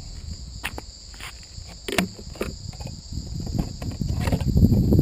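Steady high-pitched insect drone, cicadas or crickets, with a few scattered clicks. Low rumbling noise builds over the last couple of seconds and becomes the loudest sound.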